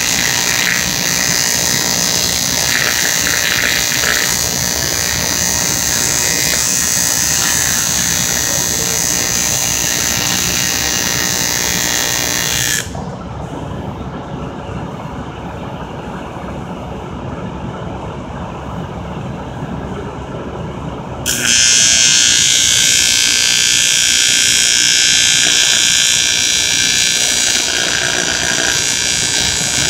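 TIG welding arc on metal tubing: a steady, loud hiss. The arc cuts off suddenly about 13 seconds in, leaving only lower background noise, and strikes again some eight seconds later.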